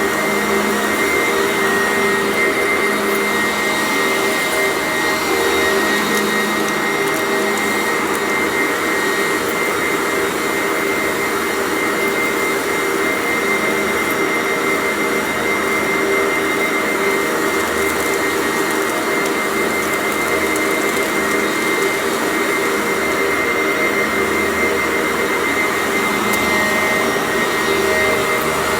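Sanitaire commercial vacuum cleaner running steadily with a high motor whine, swelling slightly every couple of seconds as it is worked back and forth, with faint scattered crackles from crunchy debris being picked up.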